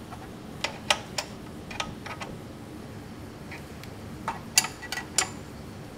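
Scattered sharp metallic clicks and clinks, about a dozen at irregular intervals, from a hand tool and parts being handled against metal fittings in a car's engine bay.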